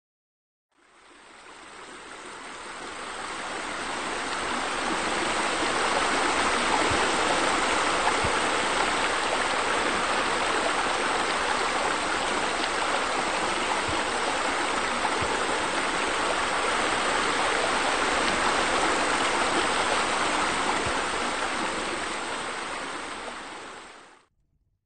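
Steady rush of running, spilling water, fading in over the first few seconds and fading out shortly before the end.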